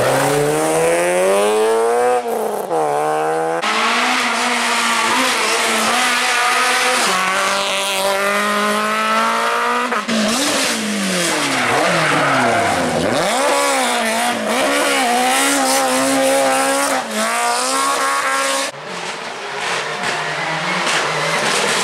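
Rally car engines revving hard as the cars pull away, the pitch climbing through the gears with quick gear changes. The cars come one after another. Around halfway one engine's note drops steeply as the car brakes and slows, then climbs again.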